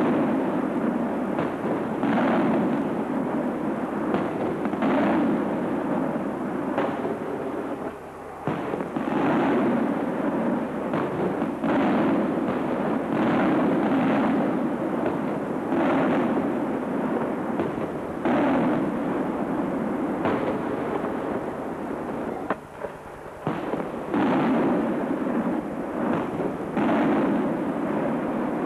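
Aerial firework shells bursting in quick succession, about one bang every second, over a continuous rumble, with two brief lulls.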